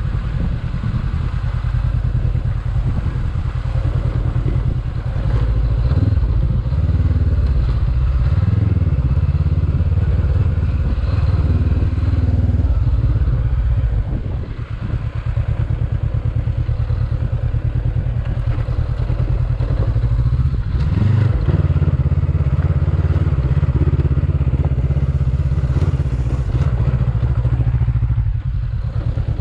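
Honda CB500X's parallel-twin engine pulling the bike over a loose dirt track, the revs rising and falling with the throttle and easing off briefly about halfway through.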